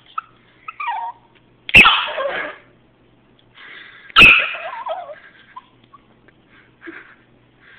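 A chiweenie, a chihuahua–dachshund mix, gives two sharp, loud, agitated barks about two and a half seconds apart, right at the microphone, with quieter noises from the dog between them.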